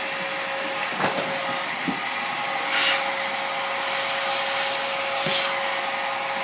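Steady whirring drone of a small motor-driven blower with a constant hum tone, broken by a click about a second in and a few short hissing bursts.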